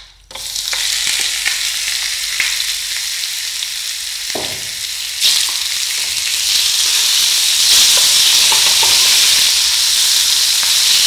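Marinated chicken pieces sizzling in hot oil in a nonstick frying pan. The sizzle starts abruptly as the chicken hits the oil and grows louder, with a wooden spatula knocking and scraping the pan as the pieces are stirred.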